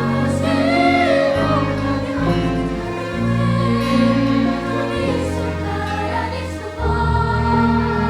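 Song: choir-like singing over held chords, with a low bass line moving to a new note about every second.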